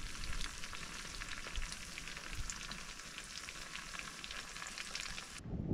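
Battered pike pieces frying in hot oil in a cast iron skillet, a steady sizzle full of tiny crackles and pops that cuts off suddenly near the end.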